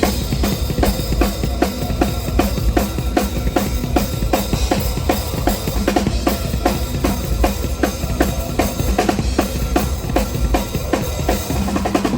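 Metal drum kit played at a fast tempo: dense, rapid bass drum strokes under regular snare hits and cymbals, running without a break.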